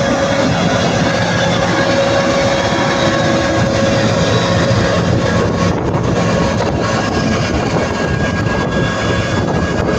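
Massey Ferguson 9380 Delta combine harvester running steadily while harvesting wheat: a constant engine and machinery drone with a steady whine over it.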